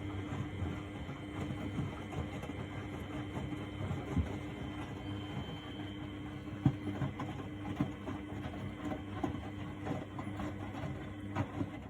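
A 1999 Miele Novotronic W828 front-loading washing machine running its wash cycle: a steady motor hum with irregular soft knocks from the turning drum and load. A sharper knock comes about two-thirds of the way in.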